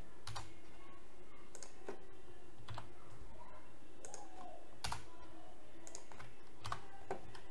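Computer keyboard keys pressed in separate, irregular clicks, a handful over several seconds, over a steady low background hum.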